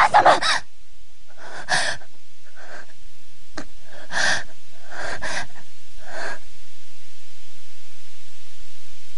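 A harsh noisy sound cuts off within the first second. Then come six short, breathy gasps with pauses between them, the last about six seconds in, over a faint low steady hum.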